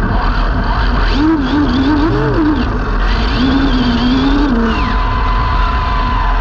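Arrma Limitless RC car's brushless motor driving the car fast on tarmac, heard through a camera mounted on its body: loud rushing wind and road noise, with a motor whine that rises and falls with the throttle twice.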